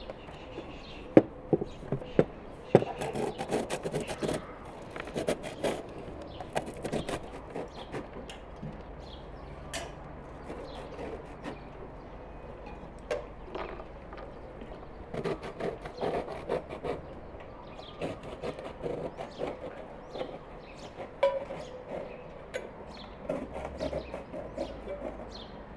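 Walnuts being grated on a conical metal box grater held against a wooden board: scraping with sharp knocks, loudest in the first few seconds. Later come sparser light clicks and clatter.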